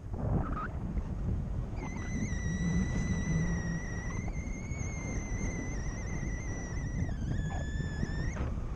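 Wind rushing over the microphone in paraglider flight. A steady high-pitched tone sets in about two seconds in, wavers slightly, dips a little near the end and then cuts off.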